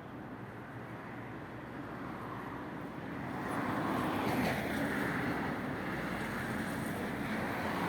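Street traffic noise: a vehicle passing grows louder from about three seconds in and is loudest a little past four seconds, after which a steady road rumble continues.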